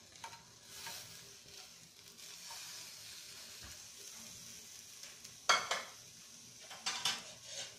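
Faint steady sizzling of fried potato chips and rice in a preheated grill pan. A sharp clatter comes about five and a half seconds in, and a shorter clatter follows near seven seconds.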